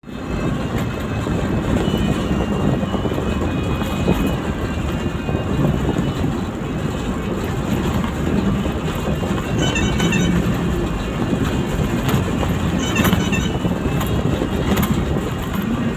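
Steady road and engine rumble from a vehicle moving through city traffic, with a couple of brief high chirps about ten and thirteen seconds in.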